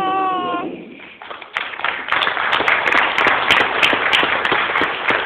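Audience applauding, beginning about a second and a half in and going on through the rest, with many quick claps.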